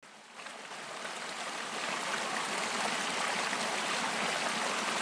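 Creek water flowing and rippling steadily, fading in over the first couple of seconds.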